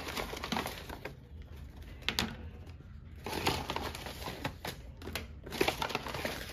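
A paper shopping bag rustling and crinkling as a hand rummages inside it, with a few sharp knocks of small items against each other.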